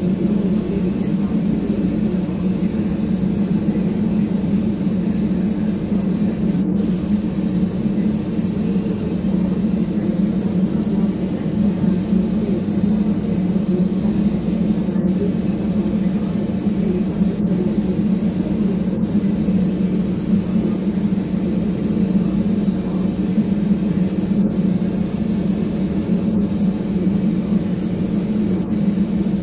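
Small gravity-feed paint spray gun hissing steadily as it sprays a base coat, over a steady low drone; the hiss breaks off for an instant several times.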